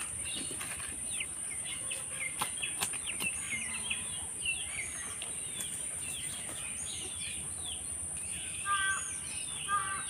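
Outdoor rural ambience: many small birds chirping and twittering over a steady high-pitched insect drone, with two short, louder calls near the end and a few faint clicks.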